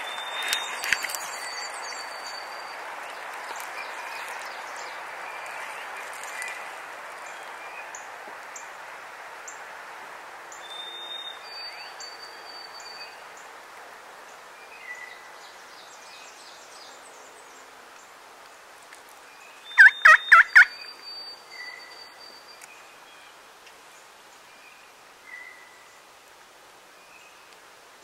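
Wild turkey gobbling: one loud, rattling gobble about two-thirds of the way through, with a smaller burst right at the start. Songbirds whistle and chirp in the background.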